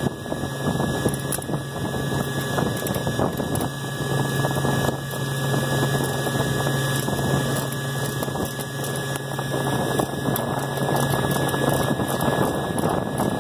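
Walk-in freezer condensing unit running steadily, its compressor and condenser fan giving a loud, even hum and rush of air. A low hum drops out shortly before the end.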